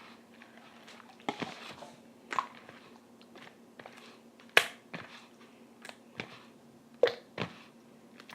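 Homemade glue-and-starch slime being worked by hand, giving scattered sticky clicks and squelches at an irregular pace, with two louder snaps about halfway through and again near the end.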